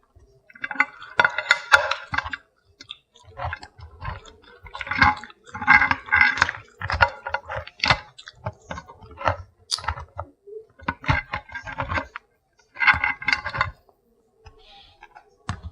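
Close-miked eating of a seafood boil: irregular wet chewing and smacking with crackly clicks, coming in short clusters with brief pauses between.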